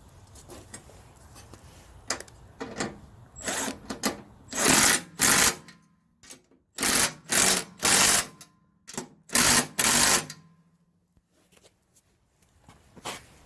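Power driver run in several short bursts, tightening the bolts on the snowblower's skid shoes.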